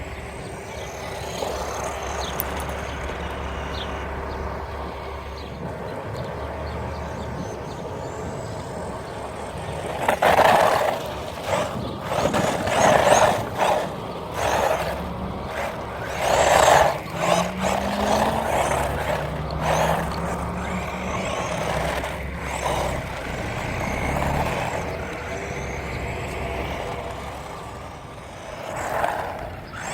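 Electric motor of a 1/12 scale off-road RC car driven in short throttle bursts. Each burst is a loud rush with a rising whine as the car speeds up. The bursts bunch together after steadier background noise in the first ten seconds or so, and one more comes near the end.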